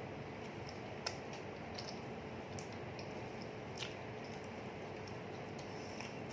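Quiet eating at a table: a few faint, scattered clicks and crackles over a steady room hiss with a low, constant hum.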